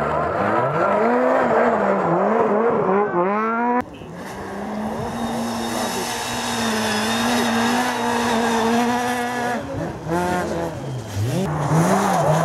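Rally car engines at full throttle on a gravel stage, revving up and dropping back through gear changes. After a sudden cut about four seconds in, a Ford Fiesta rally car holds a steady high rev while sliding through a corner. From about ten seconds a Subaru Impreza rally car's revs rise and fall again as it approaches.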